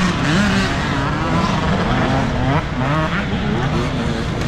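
Talaria Sting electric dirt bike with a K.O. F-Spec motor, its motor and drivetrain whining in repeated rising and falling glides as the throttle is worked, over a rush of wind, tyre and chassis noise.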